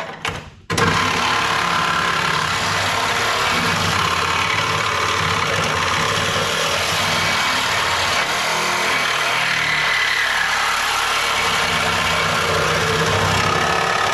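A machine's motor starts abruptly about a second in and then runs at a loud, steady pitch.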